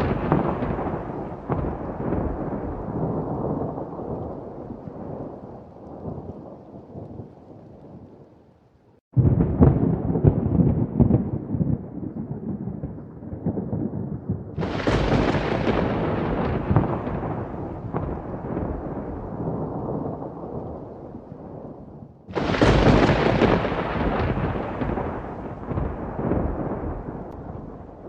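Thunder: a rumble dying away over the first eight seconds or so, then three fresh claps. The first comes suddenly and deep about nine seconds in; two sharper cracks follow at about fifteen and twenty-two seconds. Each one rolls off over several seconds.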